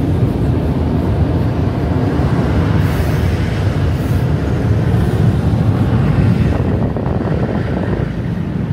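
Steady, loud low rumble heard from inside a car's cabin as the car runs, easing off slightly near the end.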